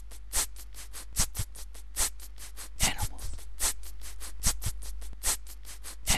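Mouth-made percussion in the style of beatboxing: a steady beat of quick clicks and hisses, about five a second, with a louder accent about every 0.8 s.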